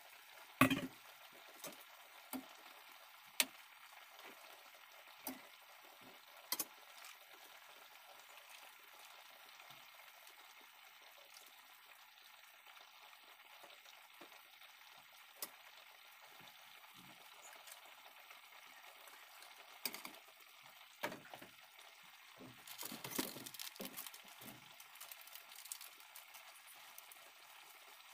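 Chicken wings simmering in adobo sauce in a wide pan: a faint steady sizzling hiss with scattered sharp pops, and a busier stretch of crackling a little past twenty seconds in.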